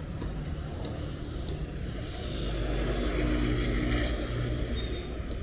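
Motor vehicle engine running in the street, swelling louder around the middle and then fading.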